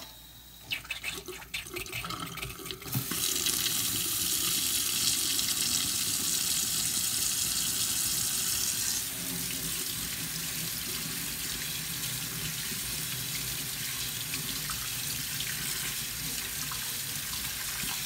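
Water running from a Moen single-handle kitchen faucet's spout into a stainless steel sink, a steady splashing rush. A few light knocks come in the first seconds. The flow gets loud about three seconds in and eases a little around nine seconds in, then stays steady. The faucet is being run to test its freshly greased swivel seal for leaks.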